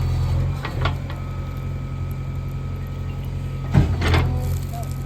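JCB 3DX backhoe loader's diesel engine running steadily, with a few sharp clanks from the machine, about a second in and twice just before the end.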